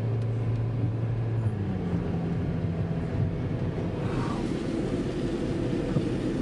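Car engine and road noise as the vehicle drives; the engine note steps up in pitch about one and a half seconds in and then holds steady.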